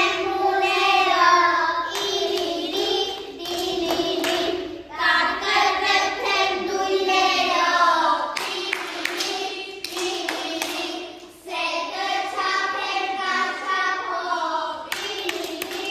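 A group of young children singing a song together, unaccompanied, in phrases of held notes, with a few hand claps in the middle.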